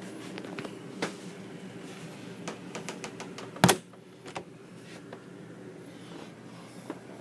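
A door shutting with a sharp knock about three and a half seconds in. Several lighter clicks and knocks come before it, over a steady low hum.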